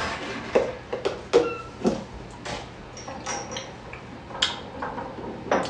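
A small metal spoon being handled and tasted from: scattered light clicks and a few brief, thin clinks, about eight in all.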